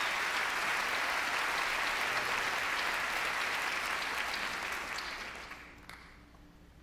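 A large theatre audience applauding, dying away about five to six seconds in.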